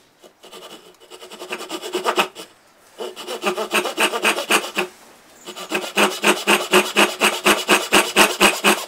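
Japanese pull saw cutting a dovetail in coigüe, the kerf being started on the end grain: a few short, uneven strokes broken by two brief pauses, then a steady rhythm of about three strokes a second in the second half.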